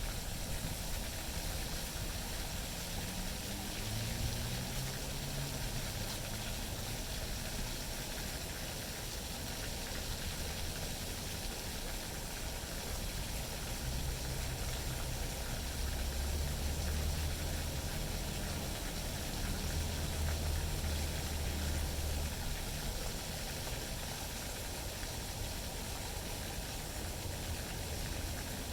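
Wind blowing across the microphone: a steady hiss, with heavier low buffeting through the middle.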